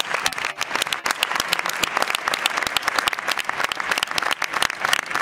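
Tennis crowd applauding: many hands clapping steadily.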